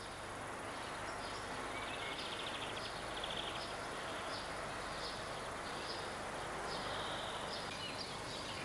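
Short high chirps repeated many times, some run together into quick trills, over a steady hiss of distant city noise.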